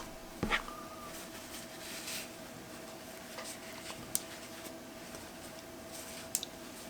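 Quiet room tone with a faint steady hum and a few small clicks: one about half a second in, one near the middle and one near the end.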